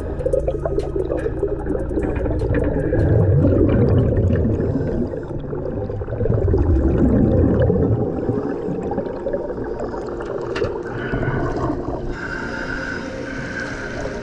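A diver's exhaust bubbles gurgling and rushing underwater, swelling in loud surges every few seconds with each breath out. Near the end the bubbling thins out as the diver breaks the surface.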